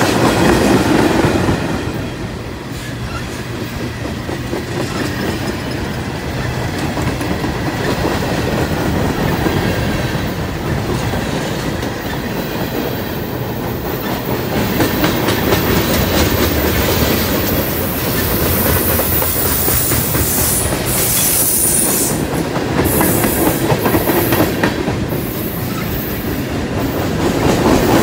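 Freight train of tank cars and open hopper cars passing close by, a steady rumble and clatter of wheels on the rails.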